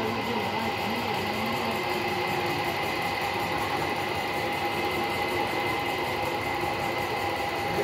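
A steady mechanical drone with a few constant tones, unchanging throughout, with faint wavering voices beneath it.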